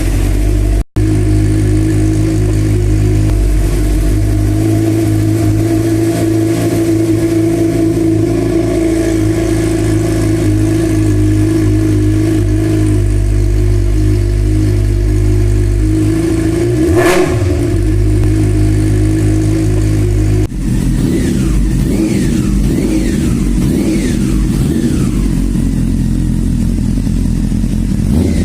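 Motorcycle engine running steadily, with a short throttle blip about two-thirds of the way through. After a cut, a different motorcycle engine is revved repeatedly, its pitch rising in sweeps.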